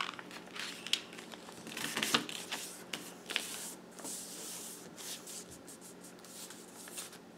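A sheet of printer paper being folded and its crease pressed flat by hand on a wooden table: soft rustling, a few light ticks about two seconds in, and a stretch of rubbing near the middle.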